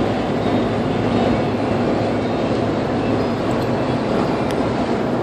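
Steady rush of wind through the open side window of a moving car, mixed with the car's road noise.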